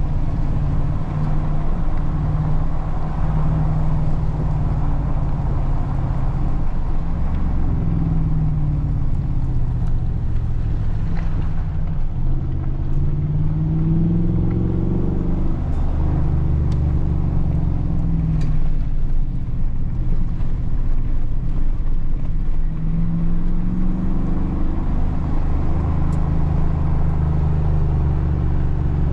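Ford SVT Raptor's 6.2-litre V8 driving: a steady low drone, with the engine note climbing and then dropping back several times as the truck accelerates and shifts gears.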